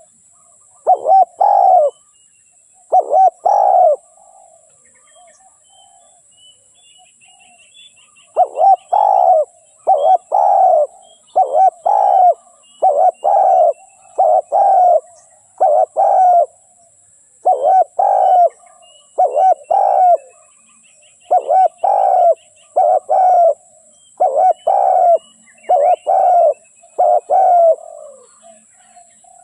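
Spotted dove cooing: a series of short, repeated coo phrases, about one a second, pausing for about four seconds after the first three before running on steadily. Faint chirps of small birds sound behind it.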